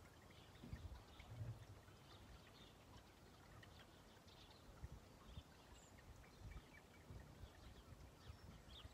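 Near silence: faint outdoor ambience with scattered faint bird chirps and a few soft low thumps.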